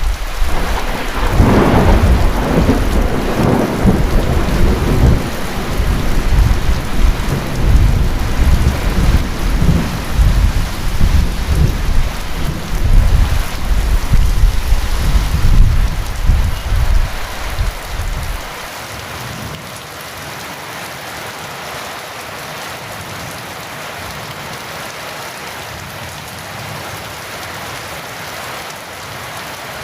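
Heavy rain falling steadily, with a long roll of thunder over it. The thunder opens with a crack, rumbles on in waves, and dies away about two-thirds of the way through, leaving only the steady rain.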